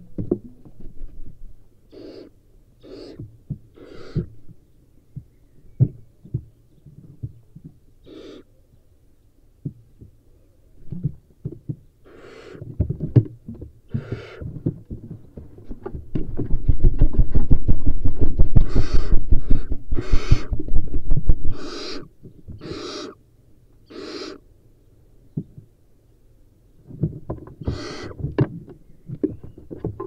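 Barn owl young in a wooden nest box giving short, harsh hissing 'snore' calls, repeated every second or so in small groups. Between about 16 and 21 seconds in, the loudest sound: a fast run of wing flapping and scuffling on the nest floor as an owlet pounces and flaps.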